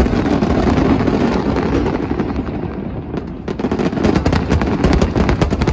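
Aerial fireworks going off: a rapid, dense run of crackles over low thuds, thinning out in the middle and thickening again about three and a half seconds in.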